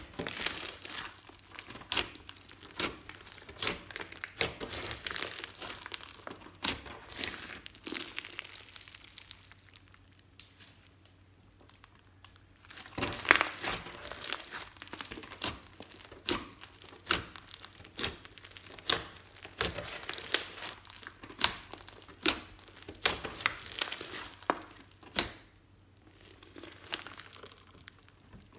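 Hands squeezing, kneading and stretching glossy slime mixed with foam beads: a dense run of irregular wet crackles and small pops, with a couple of quieter pauses.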